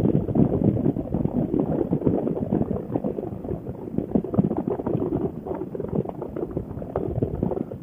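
Wind buffeting the helmet intercom microphone in gliding flight with the paramotor's engine shut off: an irregular, crackling rush with no engine note.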